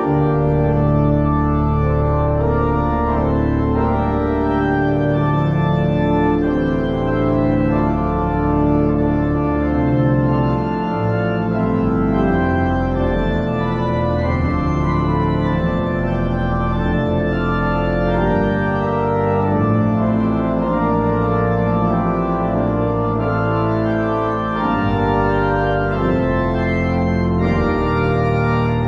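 Church organ playing sustained chords, held notes changing every second or so, over a deep pedal bass line.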